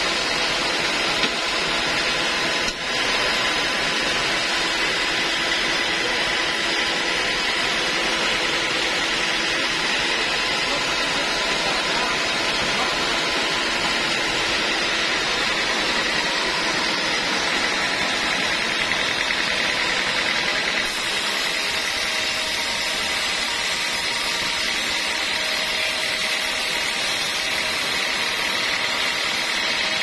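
Band sawmill running steadily, with a couple of sharp hammer knocks on the log clamps near the start. About two-thirds of the way through, the sound changes as the blade begins cutting into the teak log.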